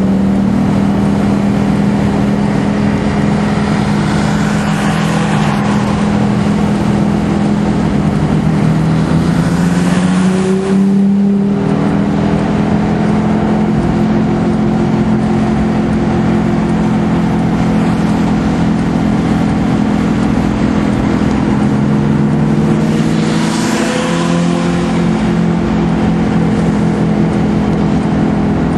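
Car engine running hard at track speed, heard from inside the cabin with wind and road noise over it. The engine note breaks off briefly about eleven seconds in and climbs again, and dips and recovers once more near the end.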